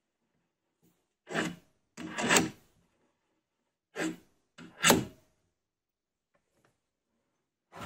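Steel parts of a wood lathe's tailstock being handled and slid into the quill: a few short scraping noises, in two pairs about a second apart, with one more at the end.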